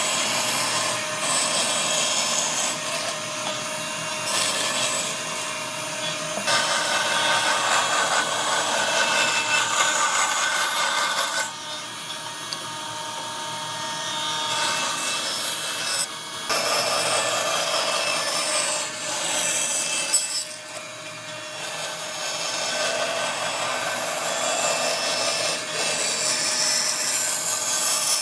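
A tool working wood, sawing or abrading it. The sound comes in stretches of a few seconds that change in character every five seconds or so.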